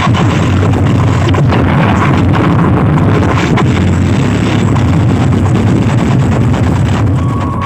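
Loud, distorted, bass-heavy dance music played through miniature sound-system speakers, the low bass dominating.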